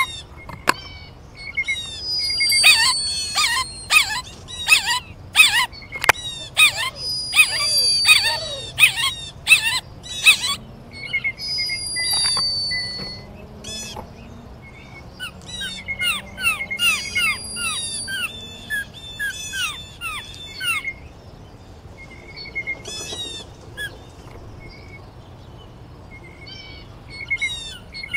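Songbirds singing: rapid runs of quick falling chirps repeated over and over, with a high thin whistle and buzzy trills mostly in the first half. Sharp clicks come in among them, mostly in the first half.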